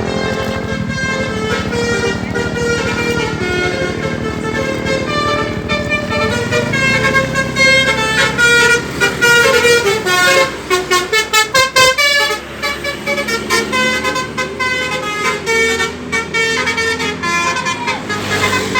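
A bus's multi-tone 'telolet' Basuri musical air horn playing a tune in stepped notes, with a quick run of short staccato notes about halfway through. The bus engine runs underneath.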